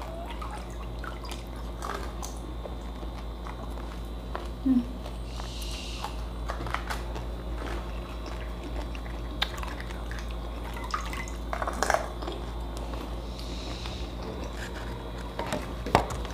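Pani puri being eaten with chopsticks: scattered small crunches and clicks from the crisp puri shells and chopsticks, with chewing and drips of the pani, over a steady low hum.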